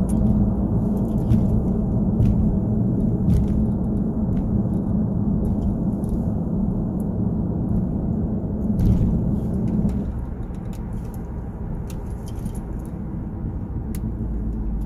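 Road and engine noise heard from inside a moving car: a steady low rumble of tyres on rough, patched pavement, with scattered light clicks and rattles. The rumble eases somewhat about ten seconds in.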